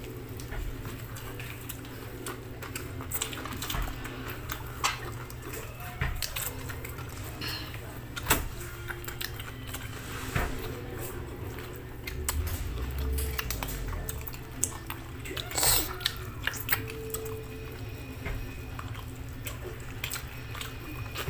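People eating with their hands at close range: chewing and mouth smacks with scattered short clicks, over a steady low hum.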